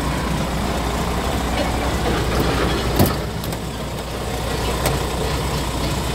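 Scania R450 truck's 13-litre straight-six diesel idling steadily, with a sharp knock about three seconds in and a lighter click near five seconds.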